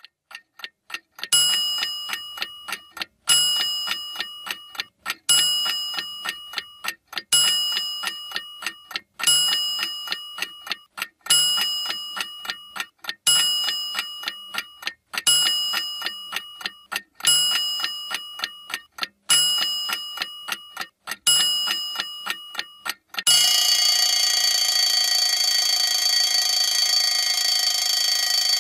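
Alarm clock ringing, with a few faint ticks first, then eleven ringing bursts of rapid strikes about two seconds apart, each nearly two seconds long. Near the end it becomes one unbroken ring.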